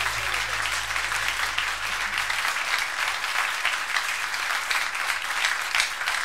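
Live concert audience applauding, a dense patter of many hands clapping at the end of a song. A low held tone underneath stops about two seconds in.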